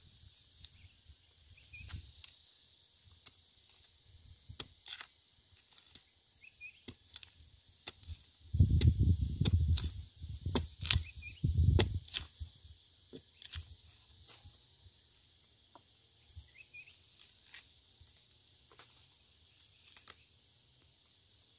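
A small axe chopping and prying at a splintered dead stump, giving a string of sharp, irregular knocks and cracks of wood. There are two louder, low, rumbling stretches around the middle. A steady high insect hiss runs behind it.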